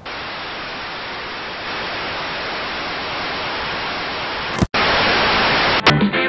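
Television static: a steady hiss of white noise from a detuned TV set. About three-quarters through it cuts out for an instant and comes back louder.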